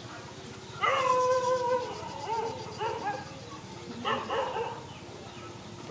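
Baby macaque crying: a long, level-pitched cry about a second in, followed by several shorter cries that rise and fall.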